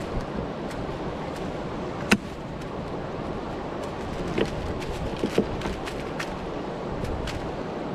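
Steady rush of wind and churning river water below a dam, with a few short sharp clicks and taps; the loudest click comes about two seconds in.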